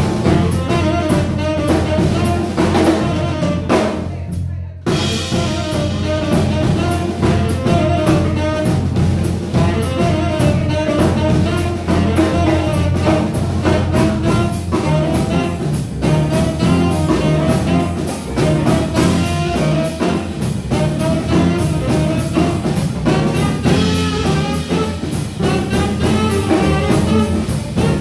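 A live band plays without vocals: saxophone, electric guitar, bass guitar and drum kit. About four seconds in, the band drops out briefly and then comes back in.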